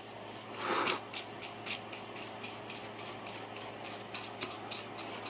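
Lint-free wipe rubbed over a circuit board wet with isopropyl alcohol: soft, scratchy wiping, with one louder swish about a second in.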